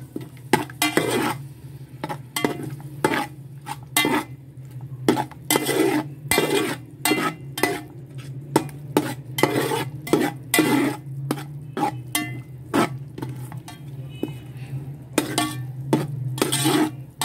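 A metal spoon stirring and scraping thick masala frying in a metal pot, in quick strokes about two a second, with a faint sizzle. A steady low hum runs underneath.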